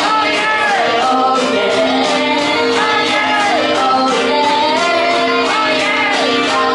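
A woman singing a Japanese pop song live into a handheld microphone over backing music with a steady beat.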